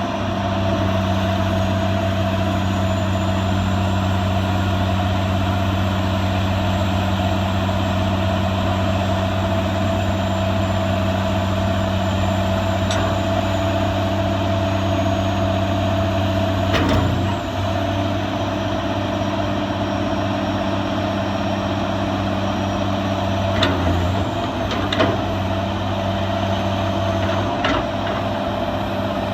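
Caterpillar 345CL hydraulic excavator's diesel engine running at a steady speed, with a few short sharp knocks or clanks in the second half.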